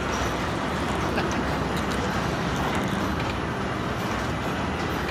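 Steady running noise of a carousel turning, an even rumbling wash with no clear beat or tune.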